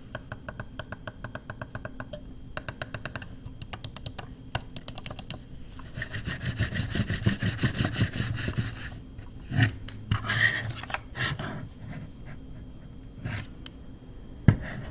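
Razer DeathAdder Elite gaming mouse clicking rapidly, about ten clicks a second, then in short bursts. After that comes a few seconds of rubbing and scraping, a couple of knocks, and a sharp thump near the end.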